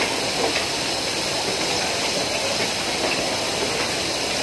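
Steady, even hiss of factory floor noise: air and machinery running continuously around a workstation on an electronics assembly line.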